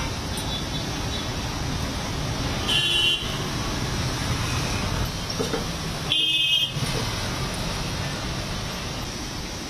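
Street traffic rumbling steadily, with two short vehicle horn toots, about three seconds in and about six seconds in, the second the louder.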